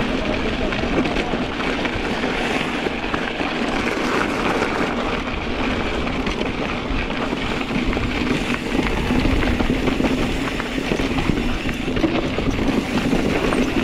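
Kona Process 134 mountain bike riding over a rough dirt trail: steady tyre noise on gravel and rock, with many small clicks and rattles from the bike.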